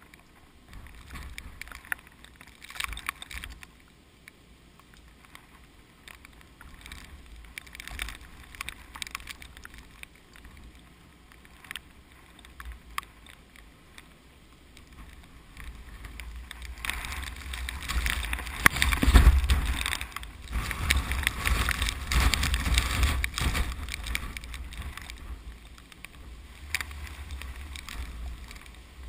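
Strong typhoon wind gusting, rumbling and buffeting the microphone over a rushing hiss. It builds to its strongest gust a little past the middle, then eases.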